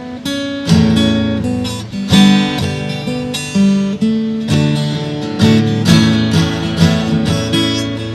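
Acoustic guitar strummed and picked in an instrumental passage of a song, with no singing, chords and notes changing about every half second to a second.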